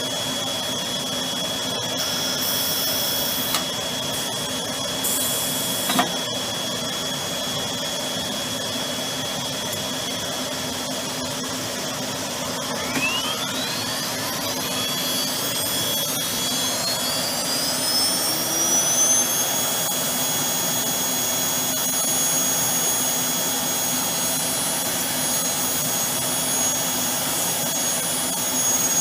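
Steady hum of the AXYZ PANELBuilder CNC router's machinery, with two short hisses and a click early on. About halfway through, the router spindle spins up with a rising whine and levels off a few seconds later into a steady high whine at full speed.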